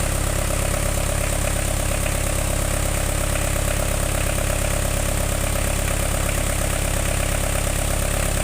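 Diesel engine running steadily at about 1500 rpm, an even, unchanging engine note.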